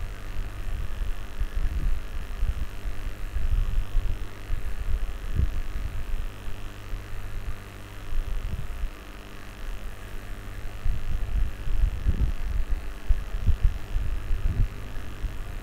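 Steady low hum with irregular low rumbling thumps.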